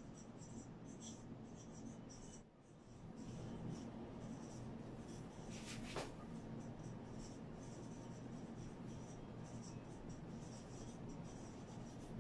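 Dry-erase marker squeaking and scratching across a whiteboard in short strokes as words are written, with a brief pause about two and a half seconds in and a single sharp tap of the marker about six seconds in. A faint steady low hum runs underneath.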